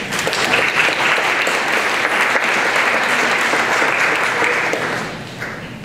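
Audience applauding, a dense clapping that starts at once and dies away about five seconds in.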